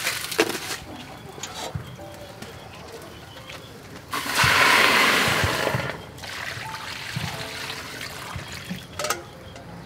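Water poured from a stainless steel pot into a wok over a fire: a loud splashing hiss starts about four seconds in, then settles to a softer pour.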